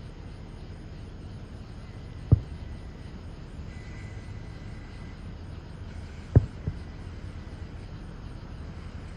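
Fireworks shells bursting: three sharp booms, one about two seconds in and a close pair about six seconds in, over a steady low background rumble.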